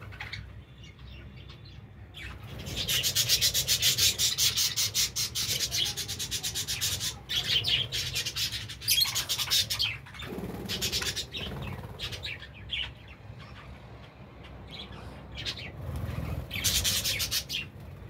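Budgies bathing in a shallow water bowl, fluttering and splashing in bursts of rapid rustling, the longest for about four seconds starting a couple of seconds in and another near the end, with light chirping between.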